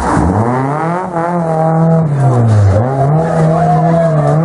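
First-generation Renault Clio rally car's engine worked on and off the throttle through a tight hairpin. The revs fall sharply at the start, climb again, dip briefly about a second in and again near three seconds, then rise back.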